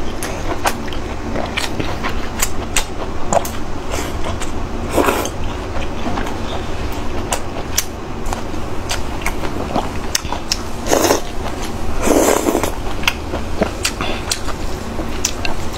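Close-miked chewing and mouth sounds of someone eating: a stream of wet clicks and crackles, with a few longer, louder noisy swishes about five, eleven and twelve seconds in.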